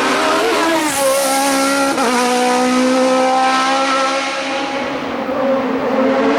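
Hill-climb race car engine running at high revs, its pitch dipping briefly at gear changes about one and two seconds in, then fading as the car moves away; engine sound picks up again near the end.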